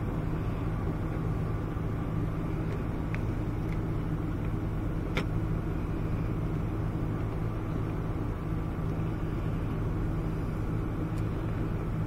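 A steady low mechanical hum, like an idling engine or running machine, with a few faint clicks as gloved hands bundle wiring.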